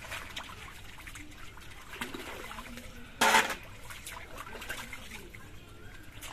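Pond water trickling and dripping as a wet hand net is worked in shallow water, with one short, loud burst of water noise about three seconds in.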